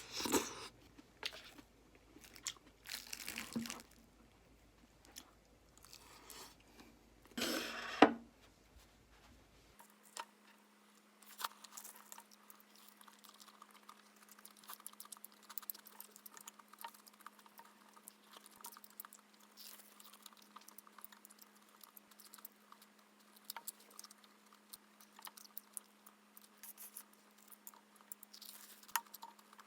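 Close-up eating sounds: crunchy chewing and scattered small clicks, with one sharper knock about eight seconds in.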